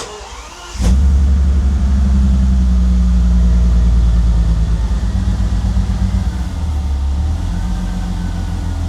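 Bentley Continental GT's twin-turbo engine cranks briefly on the starter, catches after under a second, and settles into a steady fast idle that drops a little about six and a half seconds in. It runs much better with its new copper vacuum lines, though a vacuum leak can still be heard.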